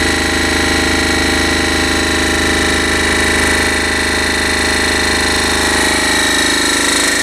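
Homemade vibrating tumbler driven by a washing machine motor converted from AC to DC, running steadily with a loud, even hum and buzz.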